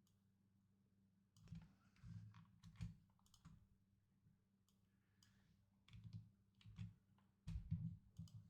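Faint computer keyboard typing and clicking in two short runs, over a low steady hum.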